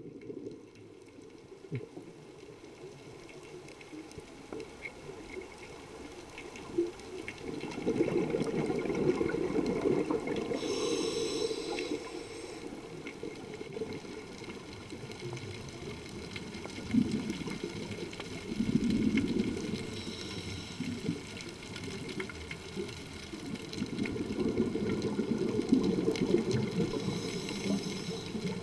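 Scuba diver's exhaled bubbles from the regulator, heard underwater: a low, muffled bubbling that swells three times, each time for a few seconds, with the slow rhythm of breathing.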